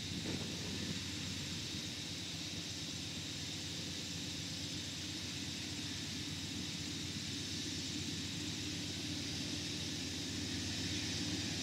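Diesel-electric freight locomotives working hard under load, starting a loaded coal train upgrade from a standstill: a steady engine drone with a high hiss, growing slightly louder near the end.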